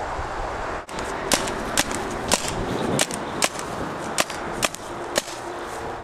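A paintball marker firing a string of sharp shots, about two a second, over steady wind noise.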